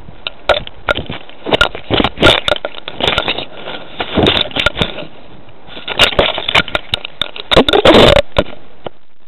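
Leaves and twigs rubbing and snapping against a collar-mounted cat camera as the cat pushes through a shrub: a dense run of sharp rustles and knocks, with a short lull about five seconds in, over a steady hiss.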